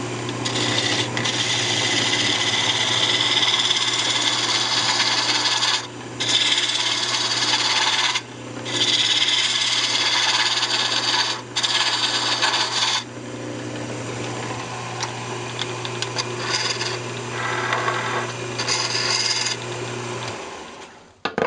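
Wood lathe running with a turning tool cutting a spinning walnut candlestick blank to true it up: long scraping cuts with a few short pauses, quieter after about two-thirds of the way. The lathe's motor hum stops near the end as the lathe is switched off.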